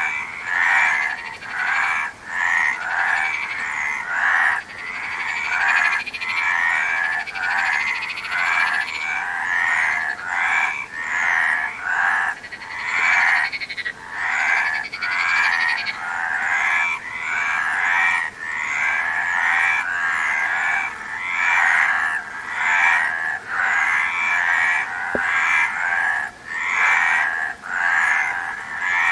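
A chorus of many frogs croaking, short rasping calls repeating and overlapping without a break.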